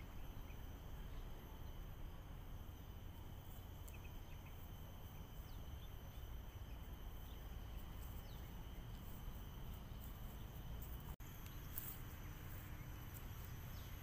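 Steady, high-pitched drone of insects in the trees, with a few faint short bird chirps over a low background rumble. The sound cuts out for an instant about three quarters of the way through.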